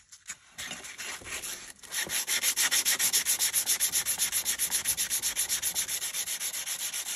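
320-grit sandpaper on a small block, rubbed by hand in quick back-and-forth strokes across the flat of a steel cleaver blade. A few light scrapes at first, then from about two seconds in a steady run of rapid strokes, several a second.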